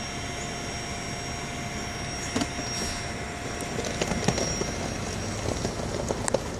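Steady running and road noise of a car heard from inside the cabin, with a few light clicks about halfway through and near the end.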